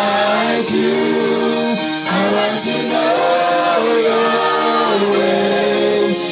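Voices singing a slow gospel worship song, holding long sustained notes that step from pitch to pitch.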